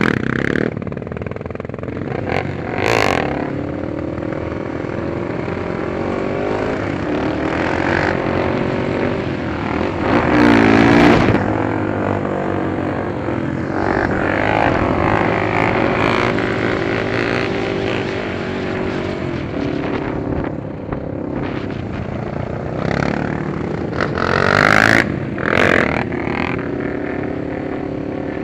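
Several ATV (quad) engines running on the road, their pitch rising and falling as the riders rev and shift. A few louder gusts of wind noise hit the helmet-camera microphone, a few seconds in, about eleven seconds in and near the end.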